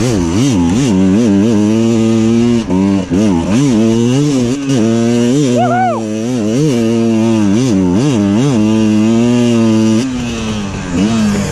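Two-stroke dirt bike engine revving up and down over and over as the throttle is worked, with one sharp high rev about six seconds in. It eases off briefly near the end.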